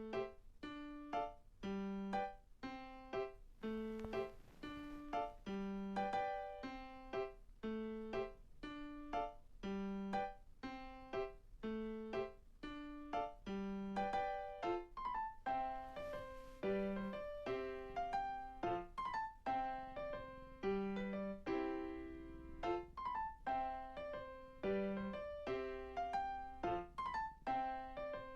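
Background music: a gentle piano melody of evenly paced single notes.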